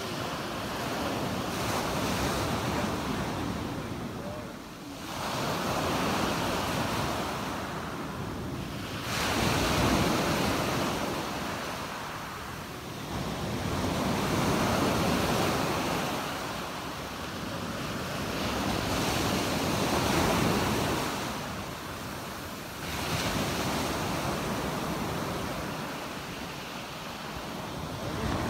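Small sea waves breaking and washing up a sandy beach, each wash swelling and fading every four to five seconds.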